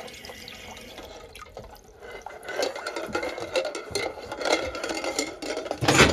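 Water being poured into a saucepan holding metal jar lids, then a run of light clinks, taps and drips from about two and a half seconds in.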